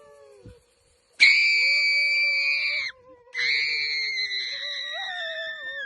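Two long, high-pitched screams, the first lasting under two seconds and the second longer, its pitch sinking slightly toward the end.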